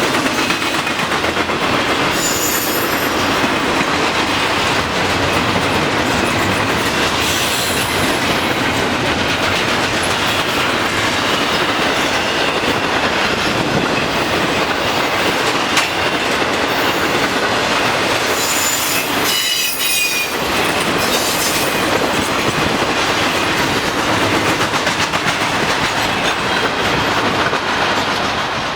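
Intermodal freight train cars rolling past close by in a loud, steady rumble of wheels on rail. Brief high-pitched wheel squeals come about two seconds in and again around eight seconds, and a longer squeal comes about two-thirds of the way through.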